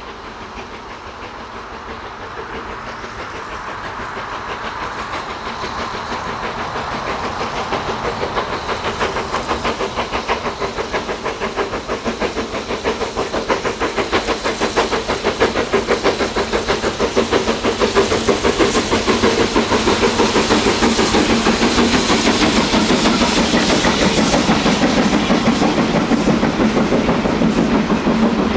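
Steam locomotive working a train, its exhaust beating rhythmically with hiss and the clatter of wheels on rail, growing steadily louder as it approaches.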